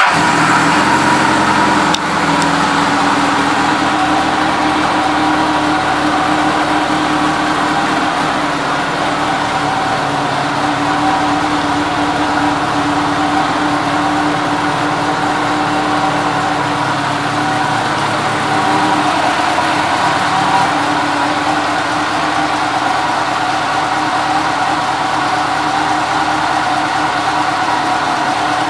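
1984 Honda Gold Wing GL1200's flat-four engine idling steadily, just after being started.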